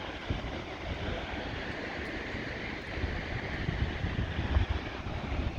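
Steady rush of falling water from the Tobot waterfall, with wind buffeting the microphone in uneven low gusts.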